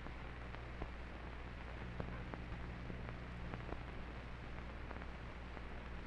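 Background noise of an old film soundtrack: a steady low hum and hiss with scattered faint clicks and crackles.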